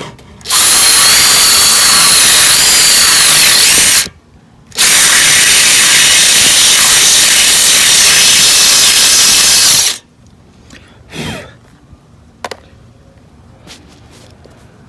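Power drill boring a mounting hole for a quick-release lip fastener, run in two long bursts of about three and a half and five seconds with a short pause between, its motor whine dipping in pitch near the end of the first burst. Short faint knocks follow.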